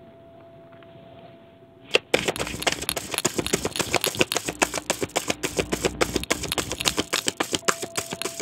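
Tarot deck being shuffled by hand: a rapid run of card clicks, many a second, starting about two seconds in.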